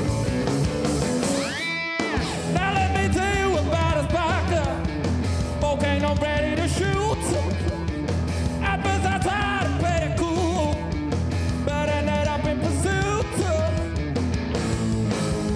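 Rock band playing live: electric guitars, bass guitar and drums, with a male lead voice singing over them. A rising glide leads into a brief break about two seconds in, and then the singing starts.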